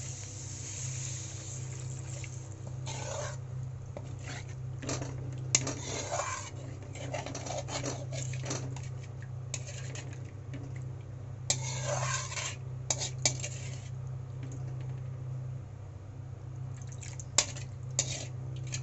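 Water poured into a hot kadai of spiced potato curry, then a metal spatula stirring and scraping against the pan with sharp clinks now and then. A steady low hum runs underneath.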